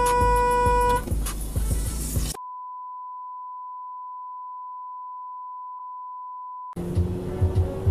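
A steady pure censor bleep of about four seconds, starting a couple of seconds in, with all other sound cut out beneath it, typical of bleeped-out swearing. Before it, a held pitched tone sounds for about a second over car cabin noise, and the cabin noise comes back near the end.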